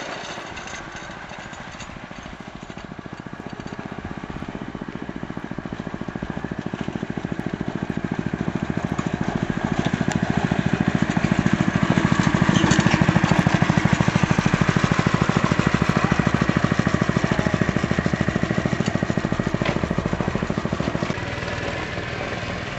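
Yerf-Dog go-kart's small engine running steadily under way. It grows louder as the kart comes near, is loudest around the middle, and fades as the kart drives off across the field.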